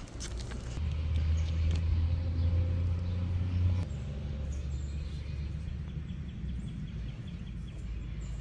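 A low steady hum for about three seconds that cuts off abruptly, followed by faint, even outdoor background noise.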